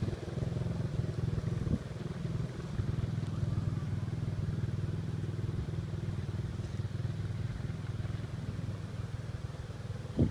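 Honda sport quad's single-cylinder four-stroke engine running at a steady pitch, growing a little fainter toward the end.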